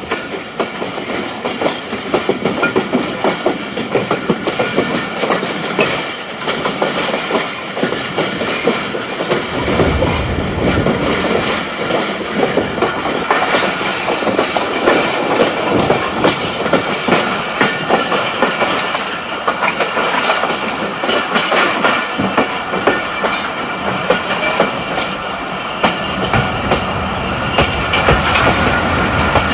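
Express train's coach wheels clattering over rail joints and points as it runs into a junction station, with a steady squeal from the wheels on the rails. A heavier low rumble joins about ten seconds in and drops away near the end.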